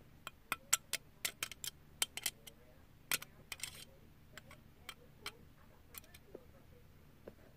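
Irregular sharp clicks and taps, several a second at first and thinning out in the second half, with a brief scratchy sound about halfway through.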